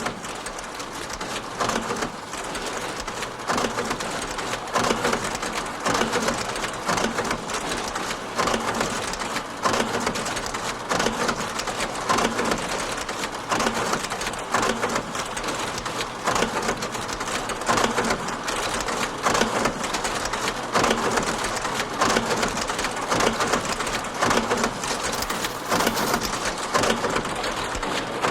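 Vintage electronic counting machine running: a steady, dense rapid clatter of clicks with louder strokes about once a second.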